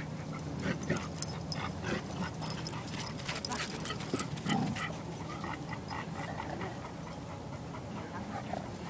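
A golden retriever and a pit bull growling low and steadily while they pull against each other on a small rubber tug toy. Scattered sharp clicks and scuffs in the first half.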